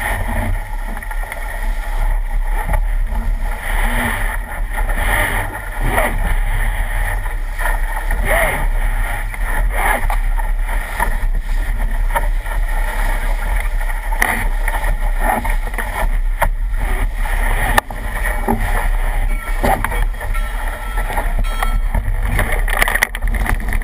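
Steady wind rumble on the microphone over the continuous rush and splash of water along a sailing dinghy's hull as it sails fast through waves.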